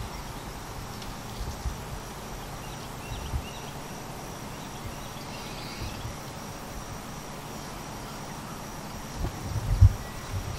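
Outdoor ambience with faint insect and bird sounds, broken by a few short, low, dull thumps, the loudest about nine to ten seconds in.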